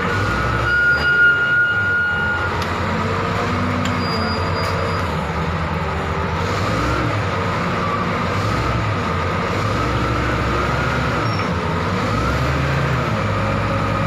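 Komatsu D85ESS-2 crawler bulldozer working: its diesel engine running steadily under load, with a steady high whine over it and the steel tracks rumbling over loose dirt. There are a few louder knocks about a second in.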